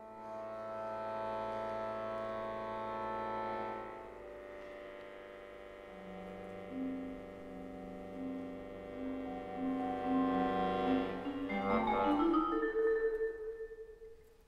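Accordion and marimba playing contemporary classical music. The accordion holds a sustained chord for the first few seconds. Then low marimba notes repeat over quieter held accordion tones, building to a busy flurry of notes near the end and a single held note.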